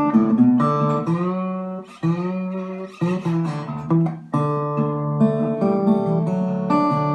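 Background guitar music: plucked and strummed acoustic guitar chords.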